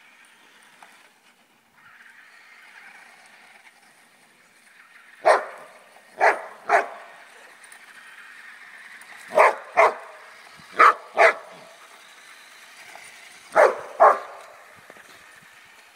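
Dog barking at a radio-controlled buggy it is chasing: nine short sharp barks from about five seconds in, mostly in quick pairs. Between the barks the faint steady whine of the Traxxas Bandit's electric motor.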